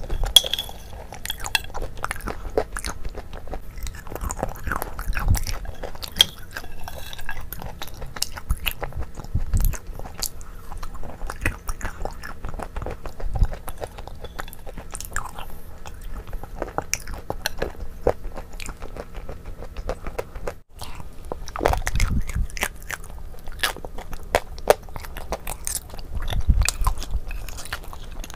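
Close-miked eating of a creamy dessert with a spoon from a glass bowl: wet mouth sounds and chewing, with many small clicks and occasional crunches.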